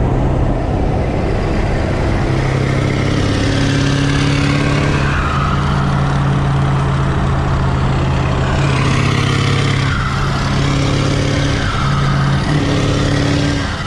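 A road vehicle's engine running steadily while driving, along with road noise, its pitch shifting slightly a few times.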